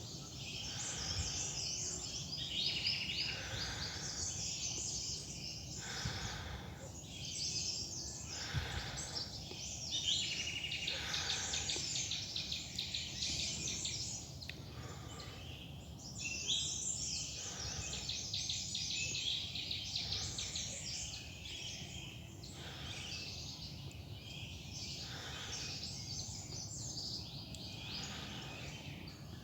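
Many forest birds chirping and trilling at once, with regular footsteps on a trail about every second and a half.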